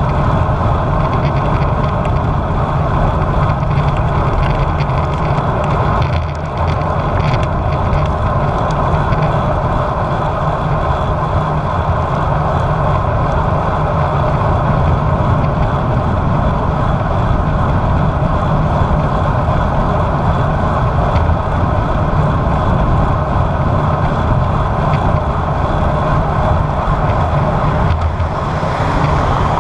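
Steady rush of wind over a bike-mounted action camera's microphone while riding a road bike, mixed with road and tyre noise.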